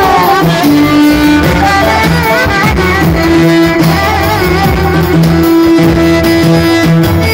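Live amplified folk music: a violin plays a melody with heavy vibrato over held electronic keyboard chords, with a steady beat underneath, all played through loudspeakers.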